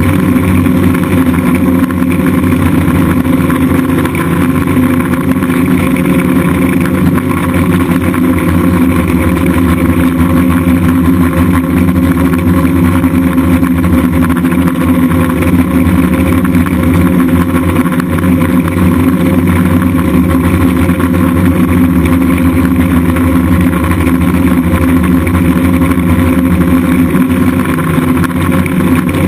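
DJI F550 hexacopter's six motors and propellers droning steadily in flight, a dense stack of steady tones that waver only slightly in pitch.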